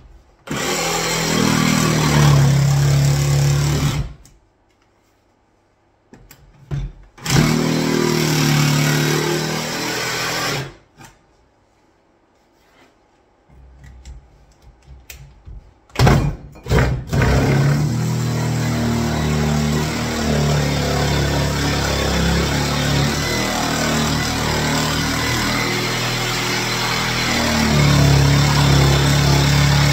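Cordless jigsaw cutting through a kitchen worktop for a sink cut-out. It runs in two short cuts of about three to four seconds with quiet pauses between them, then starts again and cuts continuously through the second half.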